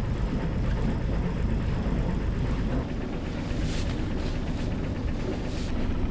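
A sailboat's inboard diesel engine idling with a steady low rumble, warming up alongside the dock before casting off.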